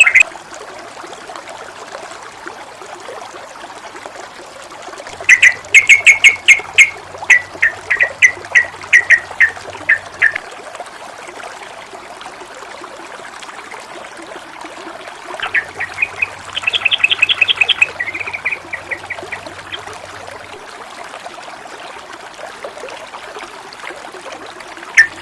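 Water trickling and splashing steadily, with a songbird calling in two bursts of rapid repeated chirps, about five seconds in and again about fifteen seconds in.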